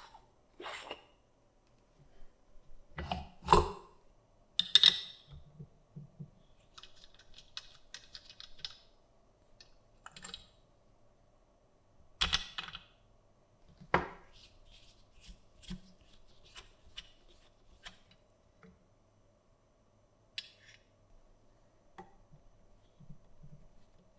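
Scattered clicks, taps and knocks of tools and small hard parts being handled, with a few louder knocks, over a faint steady hum.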